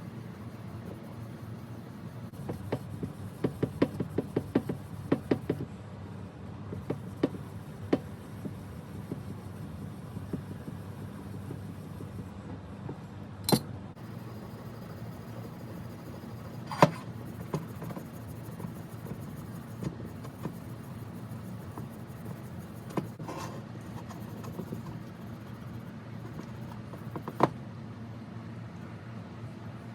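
A quick run of light clicks and taps, then a few single sharp knocks spread apart, over a steady low hum.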